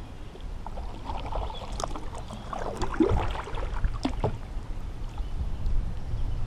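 Water splashing and lapping around a fishing kayak, with a cluster of small clicks and knocks about one to four and a half seconds in, over a steady low rumble.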